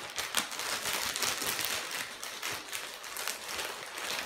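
Plastic packaging crinkling and rustling continuously as it is handled.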